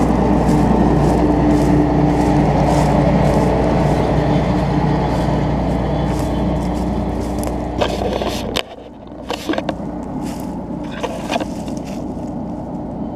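Combine harvester running steadily with a low drone and a steady hum, cutting soybeans. About eight and a half seconds in, the sound drops abruptly to a quieter running noise with scattered clicks and knocks.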